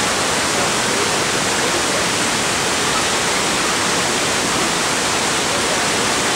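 A waterfall rushing steadily: a loud, even hiss of falling water with no breaks or changes.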